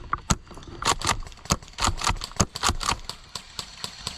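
Airsoft gunfire in an outdoor skirmish: about a dozen sharp, irregular cracks and clicks, single shots and short runs, close to the microphone.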